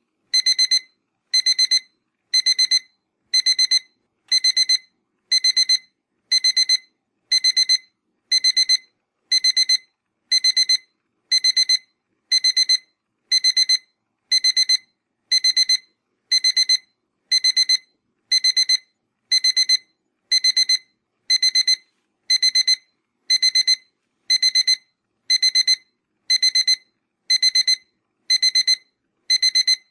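Electronic alarm beeping: a high-pitched burst of rapid pips, repeated evenly about once a second.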